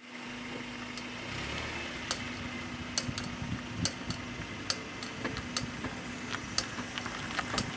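Clicking from the front right of a GD3 Honda Fit with over 270,000 km, over the engine's steady hum. The clicks are sharp and come irregularly, about once a second, closer together toward the end. The owner suspects a worn drive shaft joint, though the boots are not torn.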